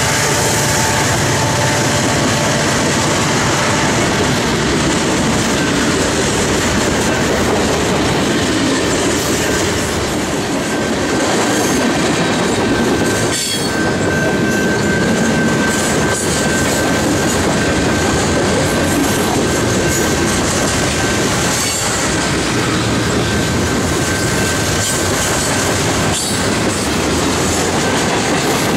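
Freight cars of a CP Rail mixed freight train rolling past at close range, wheels clacking over the rail joints. From about midway a thin, steady wheel squeal runs over the rumble.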